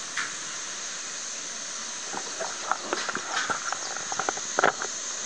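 Resort monorail cars gliding past with a steady hiss, and a cluster of short chirps and clicks from about two seconds in until near the end.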